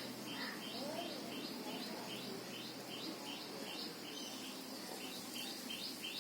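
A small bird chirping over and over, short high notes at about three or four a second.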